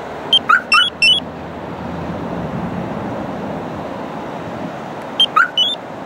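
SPY 5000m car alarm system giving short electronic chirps as it is worked from its two-way pager remote: a quick group of four about half a second in and three more near the end, each a brief gliding tone. Steady wind and traffic noise underneath.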